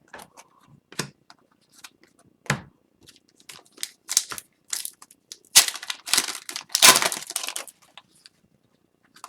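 Plastic or foil trading-card wrapping crinkling and tearing in irregular crackles as hockey cards are handled, busiest a little past the middle.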